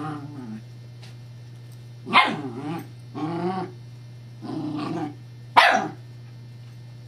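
Scottish terrier puppy giving a string of short growly barks, about five bouts, two of them sharp and louder, a bit over two seconds in and again near the end. A steady low hum runs underneath.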